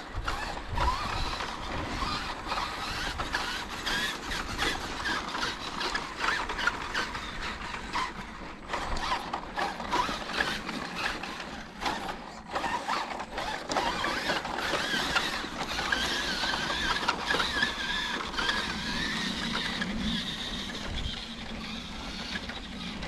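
Electric radio-controlled truck's motor and gears whining, the pitch wandering up and down with the throttle, with frequent small clicks and knocks as it drives.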